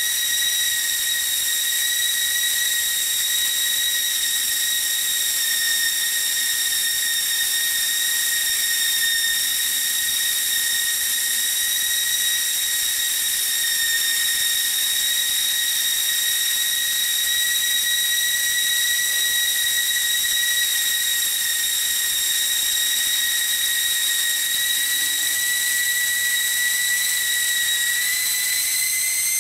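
Hightex S700 hot air welding machine running while welding a fabric strip: a steady high whine with a hiss of blown hot air. The whine rises slightly in pitch near the end.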